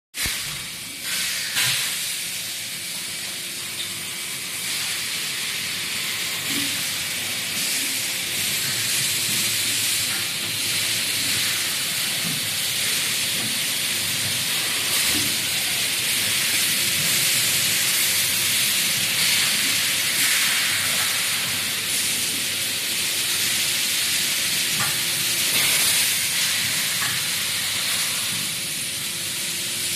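Steady hiss from pulp-molding forming and hot-press machines, with a few sharp knocks in the first two seconds and a faint hum at times.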